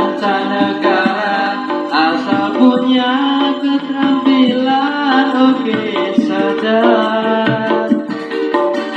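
A song with singing played through a JIC 4-inch mid-high speaker driver mounted in a homemade wooden box. The sound is strong in the middle but has little bass and little treble, as is typical of a mid-range driver.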